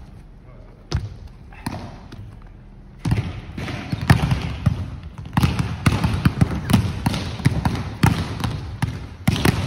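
Volleyballs being hit and bouncing on a sports-hall court: a couple of single thuds in the first seconds, then from about three seconds in a quick, dense run of ball hits and bounces.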